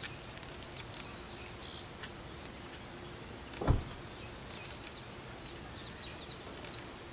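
Small birds chirping in short calls over steady outdoor background noise, with one dull thump about three and a half seconds in.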